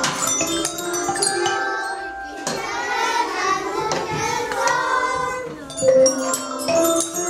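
Children singing a song together while striking the bars of metallophones, glockenspiels and xylophones with mallets, the bars ringing out in many quick notes.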